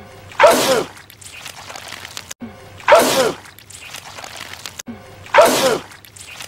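A man sneezing, the same loud sneeze repeated three times about two and a half seconds apart, each a sharp burst whose voice falls in pitch.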